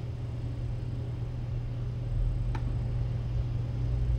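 Steady low hum with a deeper rumble swelling in about halfway, broken by two single clicks from a laptop's keys or trackpad, one about two and a half seconds in and one at the end.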